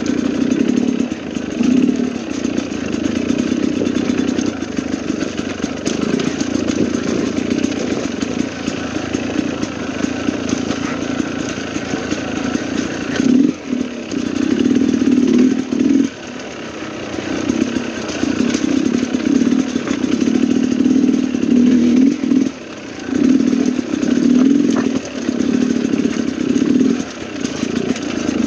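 Dirt bike engine running under the rider's throttle on a rough rocky climb, the note rising and falling, and dropping off sharply three times.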